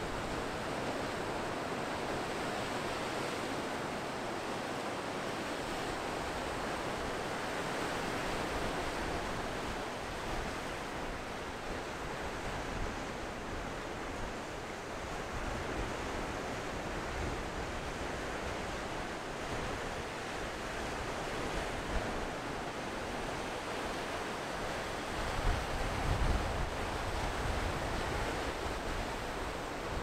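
Ocean surf breaking and washing up a sand beach: a steady wash of waves that swells and eases, with a brief louder low rumble near the end.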